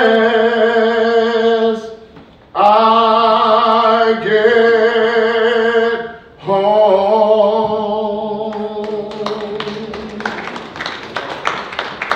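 A cappella gospel singing: voices holding long, slow chords in three phrases with short breaths between. From about nine seconds in, the last chord fades under a run of sharp stepping taps and claps, about three a second.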